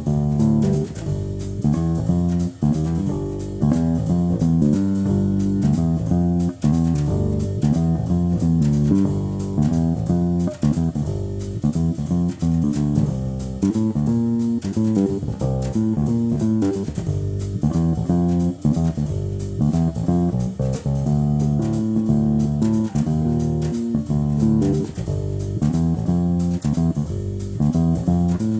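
Jazz play-along backing track in a three-beat jazz-waltz feel, with plucked bass and guitar-like chords, and no speech.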